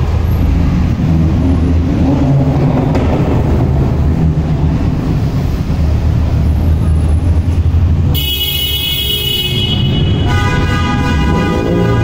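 Modified car exhausts rumbling at low speed in a slow queue of tuned cars, with engines blipping. About eight seconds in, a car horn sounds for about two seconds, and then a second, lower horn-like tone begins.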